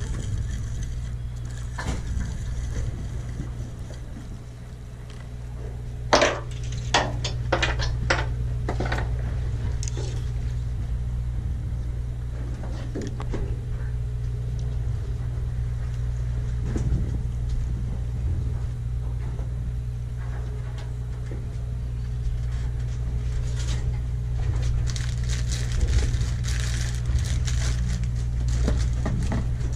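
A fishing boat's engine drones low and steady. A quick series of about six sharp clicks and knocks comes from handling gear about six to eight seconds in.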